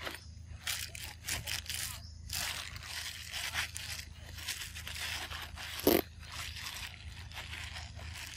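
Irregular rustling, scraping and crackling close to the microphone, with one short, louder sound about six seconds in.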